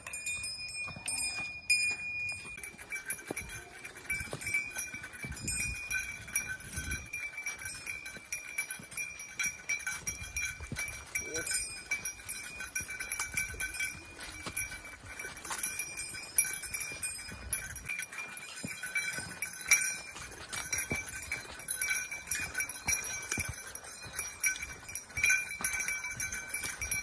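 Small bear bells ringing continuously as hikers walk, jingling with each step over footsteps on a leaf-covered dirt trail.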